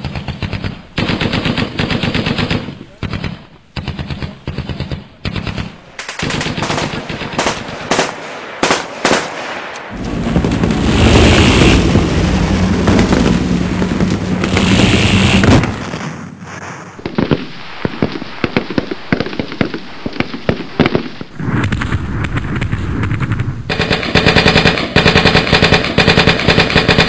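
Airsoft rifles firing on full auto in repeated short bursts with brief pauses between them, then a longer, denser stretch of continuous fire about ten seconds in, and steady rapid fire again near the end.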